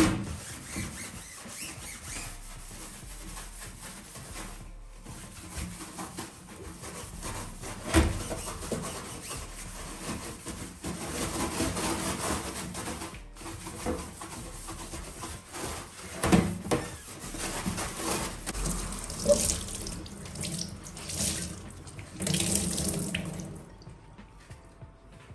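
Water running and splashing in a stainless steel kitchen sink as the sink is scrubbed and rinsed with a cloth, with a few sharp knocks.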